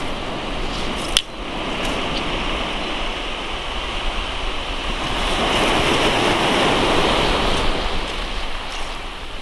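Sea surf breaking and washing over a shingle beach, swelling louder around the middle. There is one sharp click about a second in.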